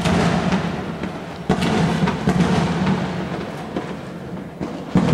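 Fireworks going off in a dense, continuous barrage of booms and crackles, with a sudden loud bang about a second and a half in and another near the end.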